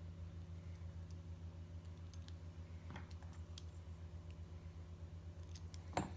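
Faint scattered clicks of the metal parts of a Kwikset key-in-knob lock being handled and taken apart, with a louder click about a second before the end. A steady low hum runs underneath.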